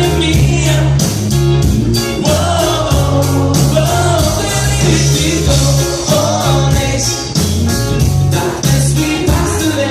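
Live rock band with drums, bass and guitar playing, a voice singing over a steady beat.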